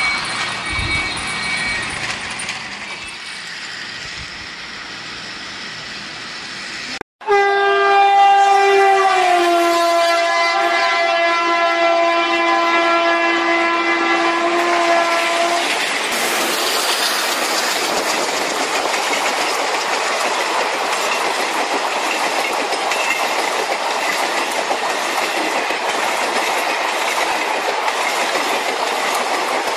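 Toy trains running on plastic track. After an abrupt cut about seven seconds in, a train horn sounds one long two-tone blast that steps down in pitch after about a second and lasts about eight seconds. A steady running noise of a toy train on its track follows for the rest.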